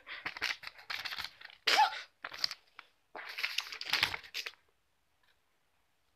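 Paper cutouts rustling and crinkling as they are handled and waved, in short noisy bursts with a pause about two and a half seconds in. There is a brief pitched squeak near two seconds in, the loudest moment.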